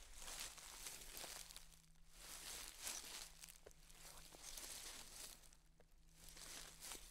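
Faint footsteps crunching on a dry trail, a soft crackle at each step, at an unhurried walking pace.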